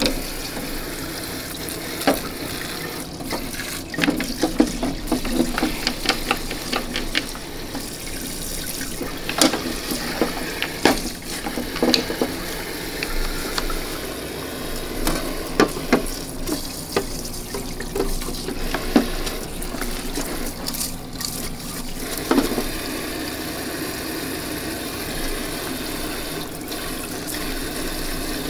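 Parts-washer pump running with solvent streaming from its flexible nozzle while greasy air impact wrench parts are washed and brushed, with scattered clicks and knocks of the parts and brush against the tank.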